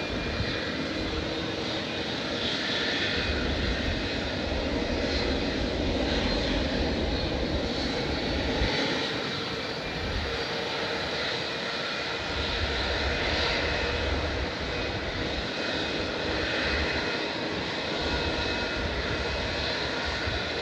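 Large jet airliner's engines running: a steady wash of engine noise, with a low rumble that comes and goes.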